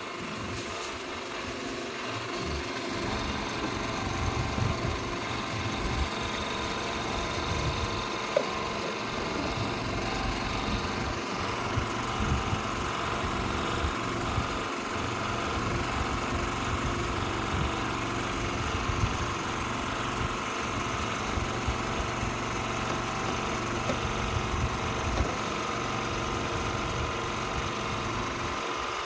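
A small engine running steadily, an even unbroken hum, with a few light knocks now and then.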